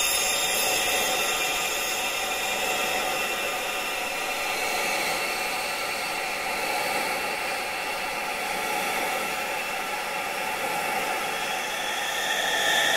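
Steady rushing wind noise with faint sustained high tones running through it. It eases a little through the middle and swells again near the end, where a high ringing tone grows brighter.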